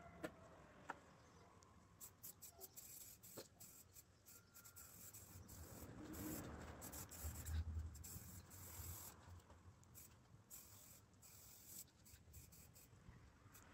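Faint hissing of an aerosol spray paint can in many short bursts, starting about two seconds in. A brief low rumble sounds near the middle.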